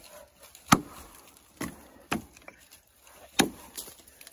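Lamaca bushcraft axe chopping into a log: about five sharp blows at an uneven pace, the last one lighter than the rest.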